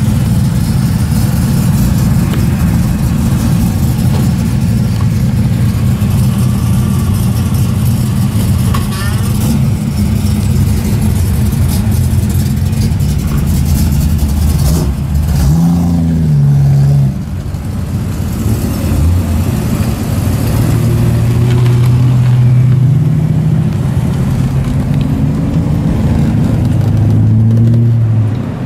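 Holden Torana's engine heard from inside the cabin as the car drives off and accelerates. The engine note is steady, then rises sharply about fifteen seconds in and climbs again in steps through the last third as the car speeds up through the gears.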